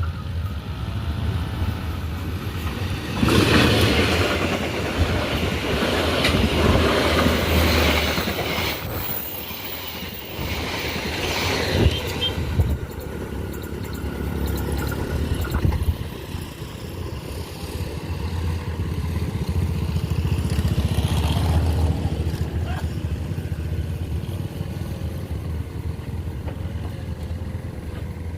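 Kereta Api Pasundan passenger train running fast on the rails, a continuous rumble of the train at speed that is loudest about 3 to 16 seconds in and then settles into a steadier rumble.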